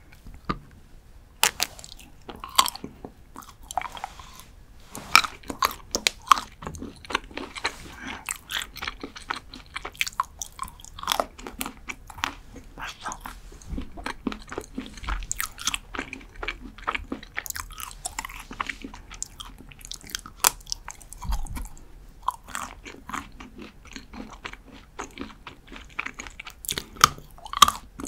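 Close-miked biting and crunchy chewing of a Ferrero Rocher dark chocolate bar studded with hazelnut pieces. Sharp, irregular snaps come as the chocolate breaks between the teeth.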